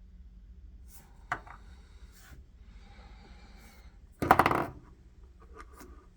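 Cartridges and their boxes being handled: a single sharp clink about a second in, then a louder half-second rattle of many quick metallic clicks a little past four seconds, like shells knocking together in a box.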